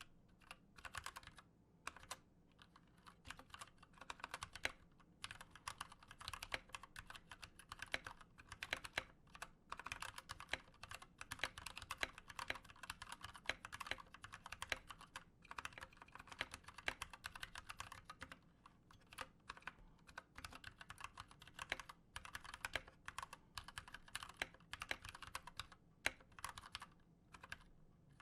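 Typing on an Anne Pro 2 60% mechanical keyboard with stock, unlubed Gateron Brown tactile switches and double-shot PBT keycaps: a steady run of rapid key clicks with short pauses, including the stabilized shift and spacebar keys.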